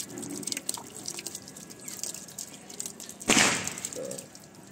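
Water from a statue fountain falling into its basin, with many small dripping and splashing sounds. About three seconds in, a short loud rush of noise.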